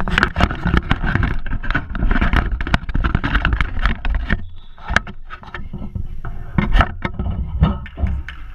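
Close handling noise of the recording camera as it is fixed in place: continuous rubbing and scraping with many knocks for about four seconds, then a few separate knocks.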